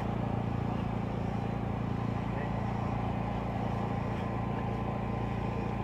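Steady low mechanical hum of running machinery, with an even hiss above it, holding constant throughout.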